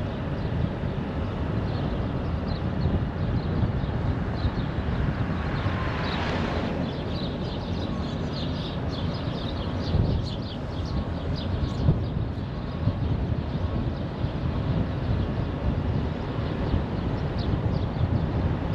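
Steady road noise of a car driving on a motorway: a low rumble of tyres and wind, with a brief swell about six seconds in.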